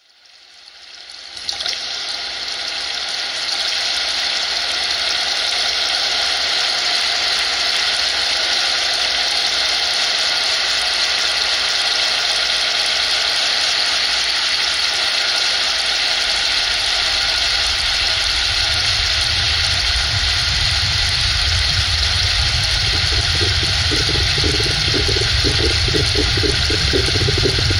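Steady rush of flowing water, fading in over the first couple of seconds, with a low rumble building up in the last third.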